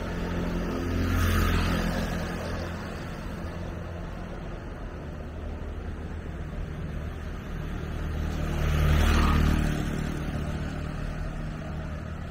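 Street traffic: two motor vehicles pass close by, one about a second in and a louder one about nine seconds in, over steady street noise.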